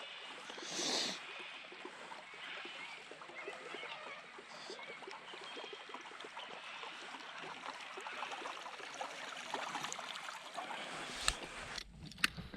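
River water trickling and lapping in a steady fine crackle, with a few sharp clicks and a low rumble near the end.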